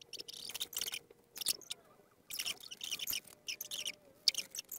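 Craft knife cutting through cardboard in repeated short scratchy strokes, in clusters with brief pauses between them.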